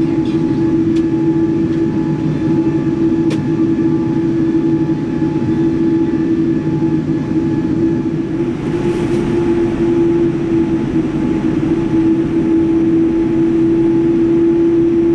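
Steady cabin hum inside a Boeing 787-9 on the ground: a constant droning tone over a rushing air noise, with a brief swell of hiss about nine seconds in.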